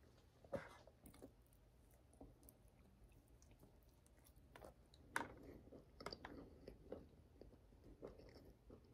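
Faint chewing and small mouth sounds of someone eating a crumbly muffin, over near silence; a soft tick about half a second in, and a cluster of chewing sounds from about five seconds on.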